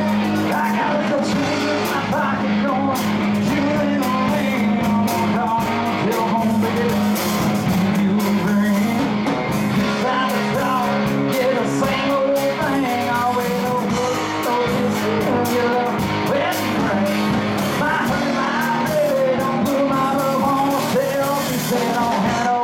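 Live rock band playing: electric guitars and electric bass through amplifiers, with a man singing into a microphone over them from about halfway through.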